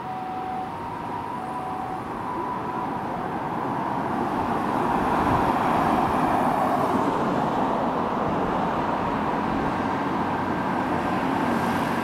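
Japanese ambulance "pee-poh" two-tone siren on a kei-car-based mini ambulance, alternating high and low notes and fading away about three seconds in as the vehicle drives off. Steady road traffic noise runs under it and swells toward the middle.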